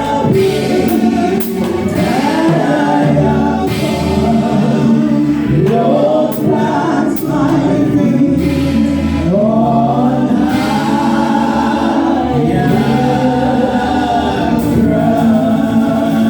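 Choir singing a gospel hymn in long held phrases over steady instrumental accompaniment.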